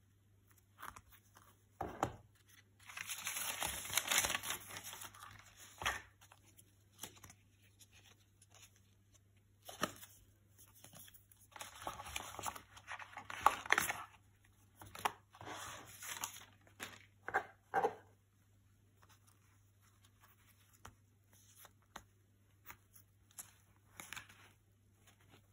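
Unboxing noises: tissue wrapping paper and a cardboard gift box rustling and crinkling in two longer bursts, with sharp clicks and taps from the box and the leather wallet being handled. Only light scattered taps in the last several seconds.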